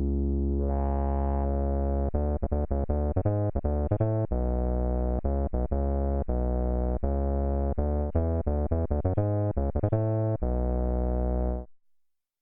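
Roland Fantom G8 keyboard synthesizer patch, sampled, playing a fast series of notes over a deep, sustained bass, then stopping abruptly near the end.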